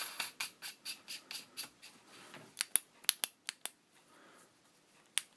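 Olight M3XS-UT Javelot flashlight's tail cap and switch being screwed onto the body: a run of small quick clicks and ticks from the threads and handling, with a few sharper clicks about halfway through and one more near the end.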